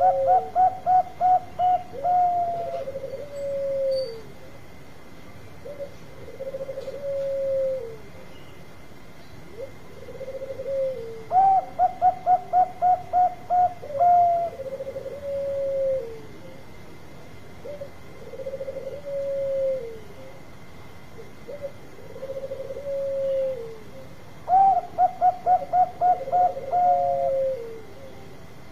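Zebra dove (perkutut) cooing. Three times there is a rapid series of about ten short clipped notes, and between them lower drawn-out coos that fall away at the end repeat every couple of seconds.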